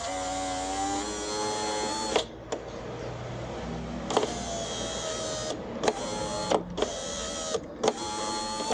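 Fiat Stilo power-window motor driving the door glass in several runs: a steady electric whine of about two seconds, then after a pause a longer run and a few short bursts with clicks between. It runs cleanly with a new rubber in the motor's coupling, the worn rubber having been the cause of the door noise.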